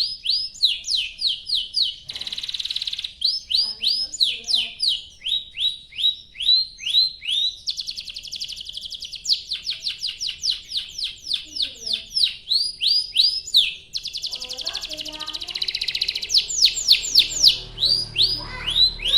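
Domestic canary singing a long, continuous song: strings of quick, downward-sweeping chirps alternating with fast rolling trills, three times for a second or two each.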